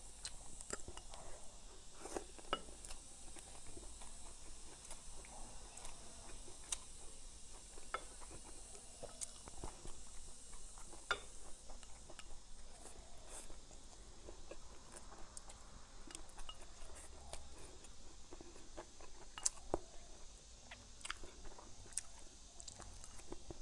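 Close-up chewing and biting of mouthfuls of rice with stir-fried bamboo shoots, pickled greens and cured pork, with scattered light clicks of chopsticks against a bowl.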